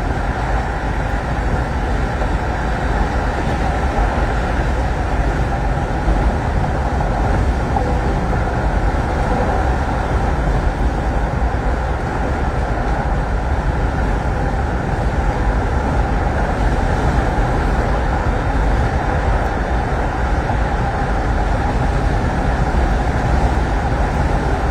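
Steady road and engine noise, as heard inside a moving car, holding level with no distinct events.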